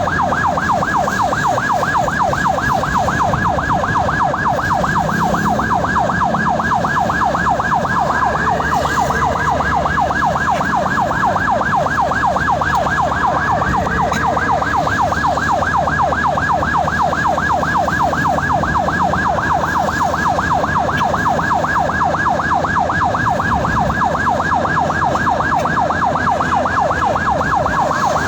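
Ambulance siren sounding continuously in a fast yelp, a rapid rising-and-falling tone repeating several times a second, with the vehicle's road and engine rumble underneath.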